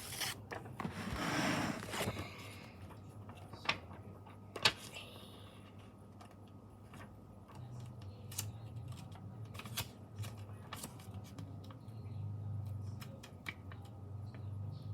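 Paper stickers being cut out and handled: a paper rustle about a second in, then scattered light clicks and snips from scissors and tweezers, two of them sharper a little before and after four seconds in.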